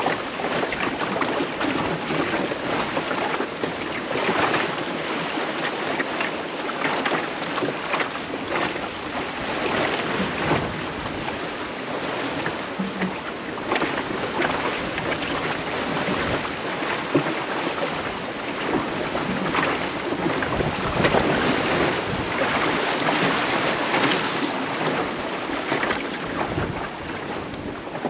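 Wind buffeting the microphone over water rushing and splashing along the hull of a small clinker-built sailing dinghy under way in a choppy sea, coming in uneven surges.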